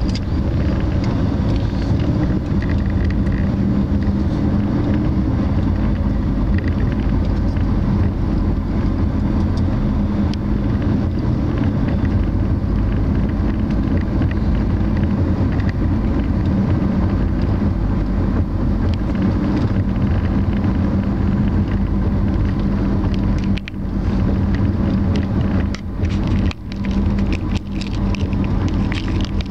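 Steady road and engine noise of a moving car heard from inside the cabin: a constant low rumble, dropping briefly a few times near the end.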